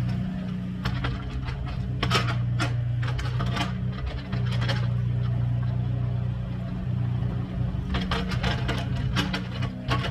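An engine running steadily at an even pitch, with bursts of clicking and clattering about two seconds in and again near the end.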